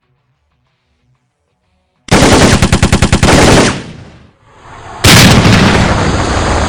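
Dubbed gunfire sound effect: a sudden burst of automatic fire, about ten shots a second, starting about two seconds in and lasting about a second and a half. About five seconds in comes a second sudden loud blast that slowly dies away.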